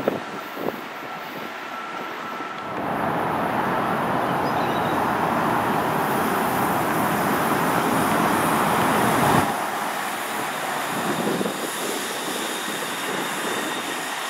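DART light rail trains running on the tracks: a loud, steady rush that cuts off suddenly about nine seconds in, followed by quieter rumbling and clicking as a train approaches.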